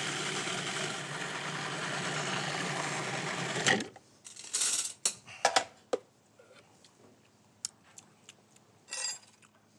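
Food processor motor running steadily while olive oil is drizzled in to emulsify an aioli, cutting off suddenly nearly four seconds in. Then a few plastic clicks and clatters as the lid is lifted off, and scattered light taps.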